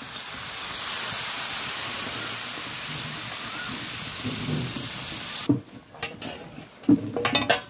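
Water poured into a hot kadai of fried jackfruit-and-potato masala, sizzling and hissing loudly as it hits the pan while a ladle stirs it; this is the water going in once the masala has been fully fried down. The hiss cuts off suddenly about five and a half seconds in, and a few sharp knocks follow near the end.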